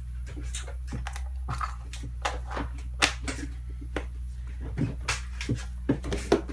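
Hollow plastic surprise egg being handled: a run of light clicks and taps of plastic on plastic, the sharpest about three seconds in. Near the end, plastic eggs clack together as a hand rummages in a plastic tub of them.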